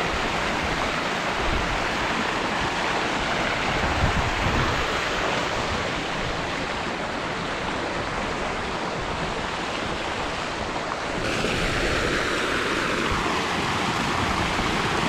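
Fountain jets and a cascade of spring water splashing into a hot-spring pool, heard close up at water level as a steady rush. About eleven seconds in the splashing gets a little louder and brighter.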